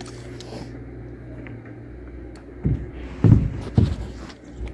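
Several dull thumps and knocks on the plywood roof sheathing as people shift and move on it, over a steady low hum; the thumps come in a cluster after a couple of seconds, the loudest a little past the middle.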